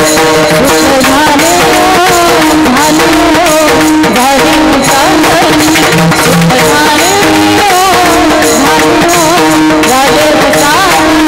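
Devotional kirtan music: a woman's voice sings a wavering melodic line over steady held accompanying notes and hand-drum percussion.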